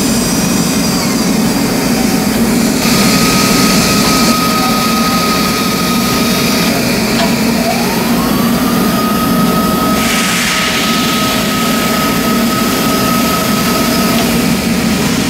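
Sharp EMV-50 vertical milling machine running with a steady hum. A high whine comes in about three seconds in and stops about three seconds later. It then rises in pitch back up to the same note about eight seconds in and holds until near the end, like a motor spinning up.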